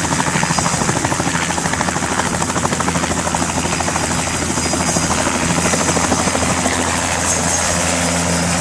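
Chilean Coast Guard helicopter running, its rotor beating in fast, even pulses over a steady high whine.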